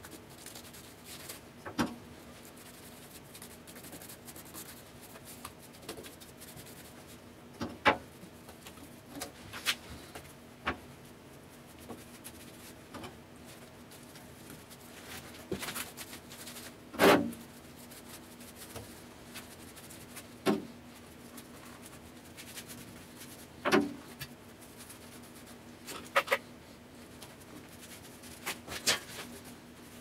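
Paintbrush rubbing and dabbing black paint onto a sheet-metal box, with sharp knocks every few seconds, the loudest about halfway through. A faint steady low hum runs underneath.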